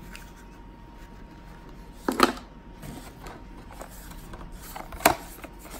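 Headphone packaging being handled: faint rustling of plastic bags and cardboard, with two short, sharp handling noises, one about two seconds in and one near the end.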